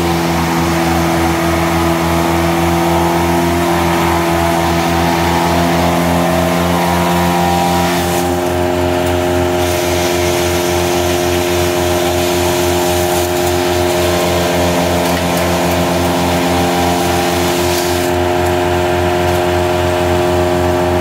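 John Deere farm tractor's diesel engine running at a steady working speed, driving a PTO forage chopper, with an even, fast pulse under it.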